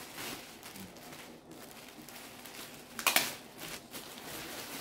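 Thin plastic poly bag crinkling and rustling as a jersey is pulled out of it, with one louder crackle about three seconds in.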